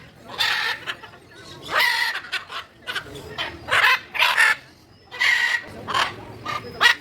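Large birds calling loudly, a call repeated about every second, some calls in quick pairs.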